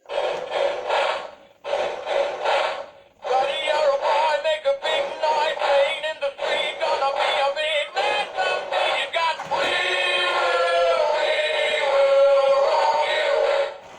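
Singing Honey Bass animatronic singing-fish toy performing its built-in song through its small speaker: rhythmic music with a singing voice, ending in a long held sung note. The toy is just repaired and working.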